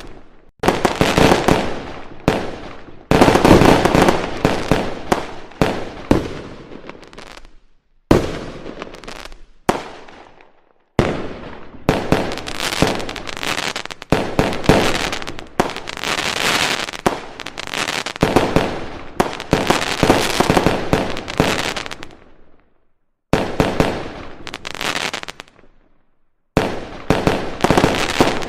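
Aerial firework shells bursting in rapid volleys of sharp bangs with crackling tails. The barrage cuts off abruptly several times, with brief silences between volleys.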